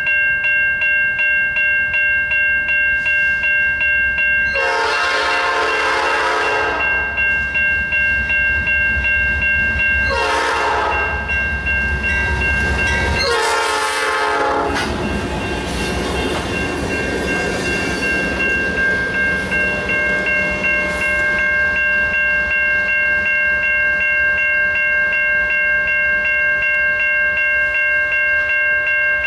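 GE C44-9W diesel locomotive sounding its air horn three times as it passes: a long blast about five seconds in, then two shorter ones, over the low rumble of its engine, followed by the rolling of the train's cars. A steady ringing tone with a regular pulse runs underneath throughout.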